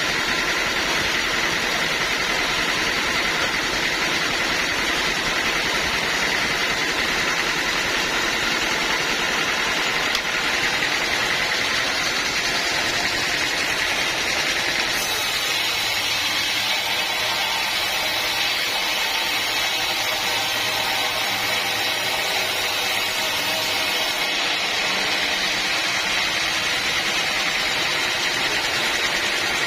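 Bandsaw sawmill running steadily, its engine and blade giving a continuous machine noise, with a hissier stretch in the middle.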